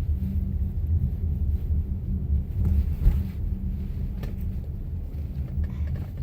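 Low, steady rumble of a car's engine and tyres heard from inside the cabin as the car drives slowly in to park, getting a little quieter in the second half.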